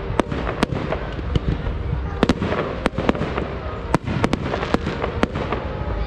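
Aerial fireworks going off: a dozen or so sharp cracks and bangs at irregular intervals from bursting shells.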